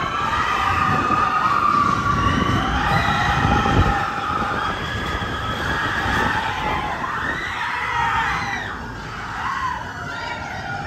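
Riders on the Expedition Everest roller coaster screaming and whooping in several overlapping voices, over the rumble of the train running on its track; the rumble is loudest about four seconds in.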